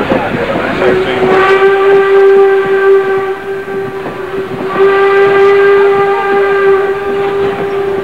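Steam locomotive whistle blowing one long, steady single-pitched blast. It starts about a second in, dips in strength about halfway through, then sounds full again.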